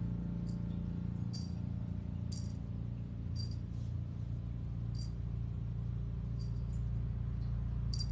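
Steady low hum with faint, light high-pitched clicks or jingles about once a second.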